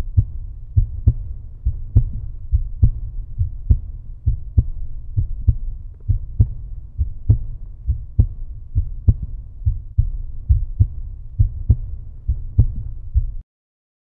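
Soundtrack of a deep, low thudding beat, the thuds coming in pairs like a heartbeat, about two to three a second. It cuts off abruptly near the end.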